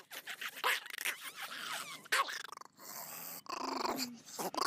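Small long-haired dog growling in short, irregular bursts, with one longer pitched stretch near the end.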